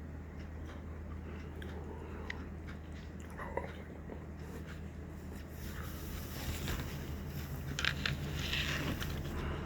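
A person eating: biting and chewing with small clicks, and a stretch of rustling, hissy noise with a few sharp ticks in the second half, over a steady low hum.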